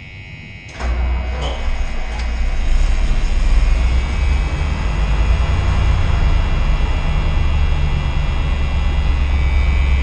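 1986 Dodge D150 pickup's engine starting up about a second in and then running steadily, heard from inside the cab. The throttle is held slightly open to keep it running while the fuel pump builds pressure after the fuel filter change let air into the fuel system.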